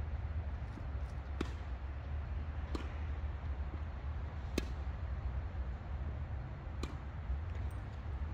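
Tennis ball pops from racquet strikes and court bounces during a rally: four sharp hits about one and a half to two seconds apart, the loudest near the middle. A steady low rumble runs underneath.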